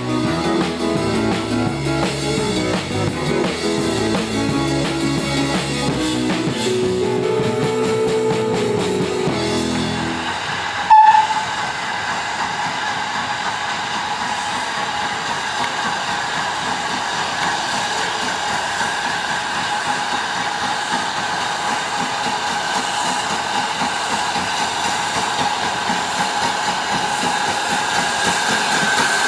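Music for about the first ten seconds. About eleven seconds in there is a brief loud blast, then the steady hiss and running noise of a Hunslet 14-inch saddle tank steam locomotive coming through a tunnel.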